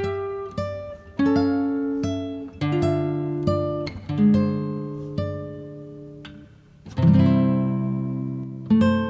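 Background music on acoustic guitar: plucked notes and strummed chords that ring and fade, with a fuller chord struck about seven seconds in.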